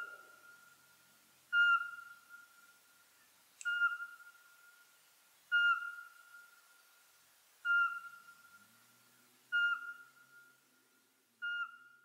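A Eurasian pygmy owl's territorial song: a steady series of single, clear whistled notes on one pitch, about one every two seconds, each with a slight drop at the end. This slow, monotonous whistling is the species' advertising call, typically given by the male. A single sharp click falls near the middle.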